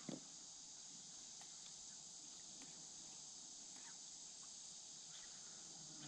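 Near silence, with a faint, steady high-pitched drone of insects, crickets or the like, running on without a break.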